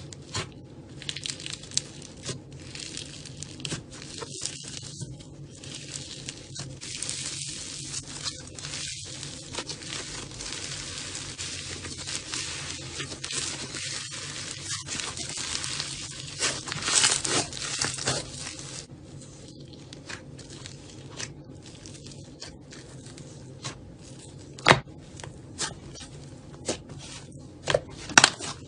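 Slime being squeezed and worked by hand close to the microphone: a dense crackling and crinkling for most of the time, thinning out about two-thirds of the way through into separate sharp pops and clicks.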